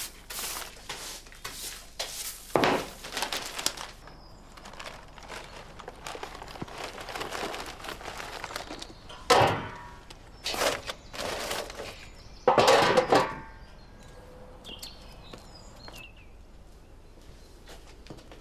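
Rustling and scraping of dry plant debris and soil swept into a paper sack, then clattering thuds as the rubbish is tipped into a galvanised metal dustbin. The loudest knocks come about halfway through and again a little later.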